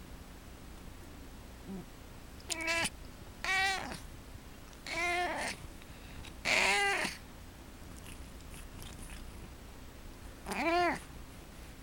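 Domestic cat making five short, squeaky pitched calls, each rising and then falling in pitch, the first four about a second apart and the last after a longer pause near the end.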